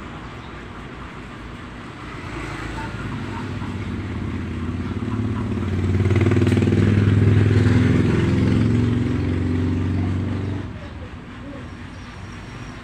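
Motorcycle engine running close by, growing louder and then dropping away abruptly about eleven seconds in.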